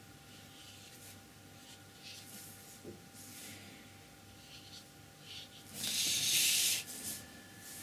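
Soft brush strokes of a round brush dabbing and dragging paint on paper, then about six seconds in a louder rustling slide lasting about a second, the sheet of paper being moved across the tabletop.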